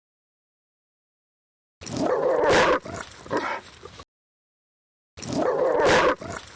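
German Shepherd barking fiercely: dead silence at first, then a bout of barking of about two seconds, a second gap of silence, and another bout starting near the end.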